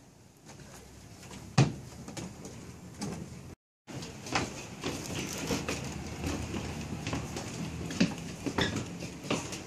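A single sharp knock about a second and a half in. After a short break, a busy run of light knocks, creaks and footsteps on a wooden plank floor.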